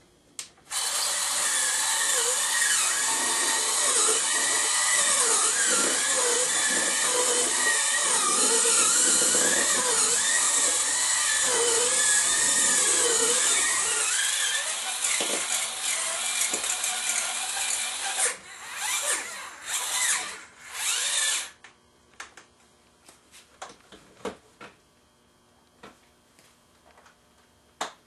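Electric mixer beating butter for cookie dough, its motor pitch wavering as the beaters work through the bowl. It runs steadily for about 18 seconds, then in a few short bursts, and stops a few seconds later, leaving only faint clicks.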